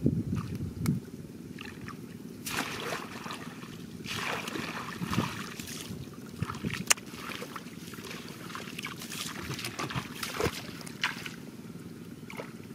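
Shallow muddy water sloshing and splashing as a person wades and sweeps a woven basket through it, in several irregular splashes.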